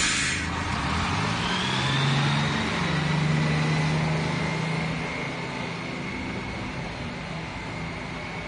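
A bus engine pulling away: a short hiss at the start, then a low engine note that rises a little and slowly fades.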